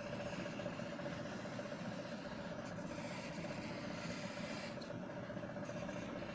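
Steady mechanical hum with one held tone, with faint scratching of a pencil drawing on paper.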